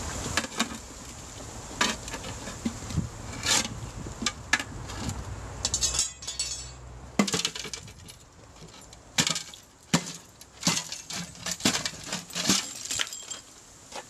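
Lumps and pellets of water-quenched aluminium clinking and clattering onto concrete as they are shaken out of a metal container, with knocks of the container itself. A series of sharp clinks, coming thickest in the second half.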